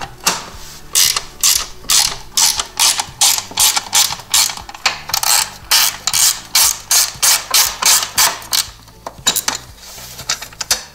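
Hand ratchet with a Torx bit clicking in quick, even strokes as it backs out the screws on a snowmobile's brake caliper cover. The clicks thin out near the end.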